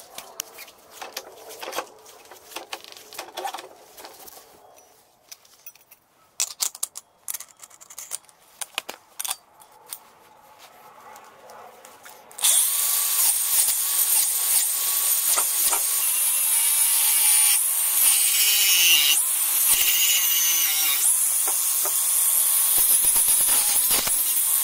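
A cordless angle grinder with a cutting disc starts abruptly about halfway through and runs steadily, cutting into a car wheel and tyre, its pitch dipping and recovering under load near the middle of the run. Before it, scattered clicks and knocks of the wheel being handled.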